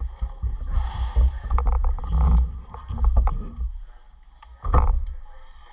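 Wind buffeting the microphone of a kart-mounted camera: heavy, irregular low rumble for about three and a half seconds with a few clicks, then one short loud burst near the end.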